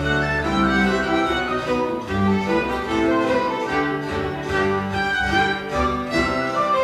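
Live traditional-music ensemble playing a Baroque-style tune, violins to the fore over cello, keyboard and guitar accompaniment.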